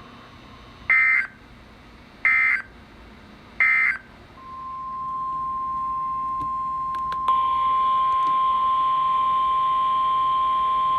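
Three short bursts of Emergency Alert System data tones, the end-of-message signal that closes a warning, followed by a steady single alert tone. The alert tone fades in about four seconds in and grows louder a few seconds later.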